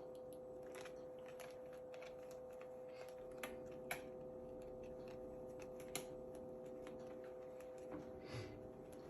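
Faint steady hum with light clicks and taps scattered through it, three sharper clicks about a third and two thirds of the way in.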